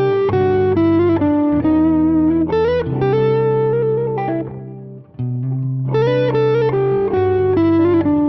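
Intro music led by a guitar, sustained notes changing chord about every second, dipping briefly about five seconds in before resuming.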